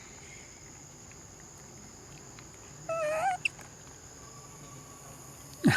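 A young monkey gives one short, wavering squeal about three seconds in. A sharp knock follows near the end.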